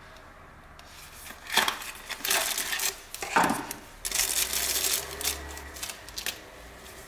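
Unboxing handling noise: a cardboard box is opened and a pen slid out, with a few sharp scrapes and rustles. Then a plastic sleeve crinkles as it is pulled off the pen.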